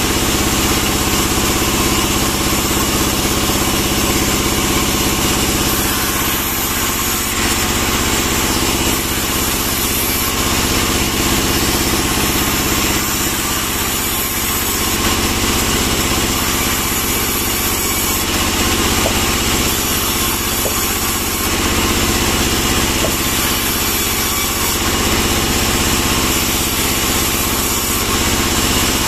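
Band sawmill running with a steady mechanical drone as it rips pine logs into boards.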